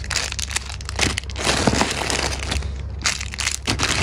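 Clear plastic bags crinkling as bagged squishy toys are picked up and rummaged through, with a short lull about two and a half seconds in.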